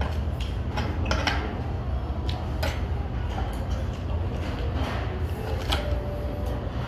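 Metal fork and knife clinking and scraping against a plate while cutting a breaded pork cutlet: scattered short clinks over a steady low background rumble.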